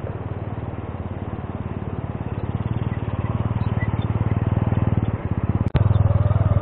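Honda C70's small single-cylinder four-stroke engine running at low revs, its rapid even putter growing louder as the bike rides slowly past. About a second before the end the sound cuts suddenly to the same engine heard close up from on the bike, louder.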